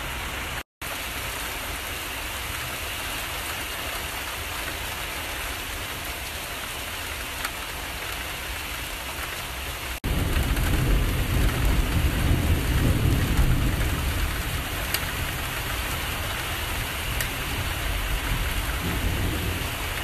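Heavy rain falling steadily with a constant hiss. From about halfway a deep rumble of thunder joins it and stays loud to the end, strongest a few seconds after it begins. The sound cuts out briefly about a second in.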